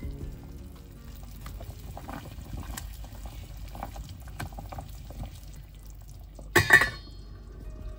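Chicken broth at a rolling boil in a stainless steel stockpot, a steady irregular bubbling. A brief, much louder clatter comes about six and a half seconds in.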